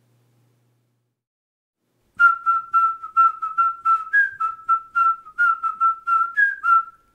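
Whistled title theme: a tune of short, clear notes, mostly on one pitch with a few stepping higher, about three notes a second, starting about two seconds in.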